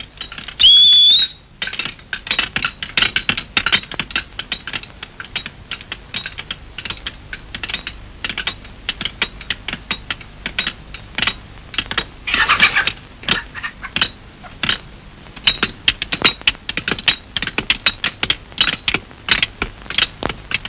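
A short, loud whistle-like tone about a second in, then a fast, irregular run of sharp clicks and taps with a denser flurry about twelve seconds in.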